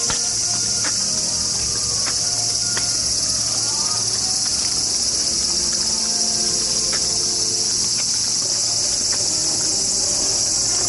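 A loud, steady chorus of cicadas, an unbroken high-pitched shrill drone.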